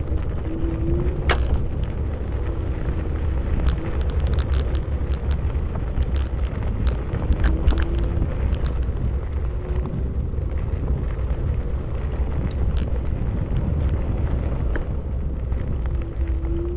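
Wind rumbling on the microphone over the noise of riding a battery-powered vehicle along a trail: a steady rush with scattered clicks and knocks, the sharpest about a second in, and a short whine that comes back every second or two.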